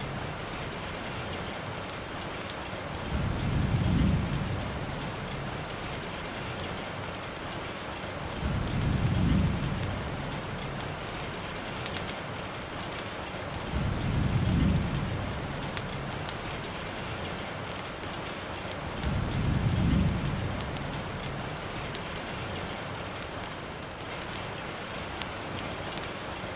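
Steady rain hiss with a low rumble that swells up and fades away four times, about every five seconds.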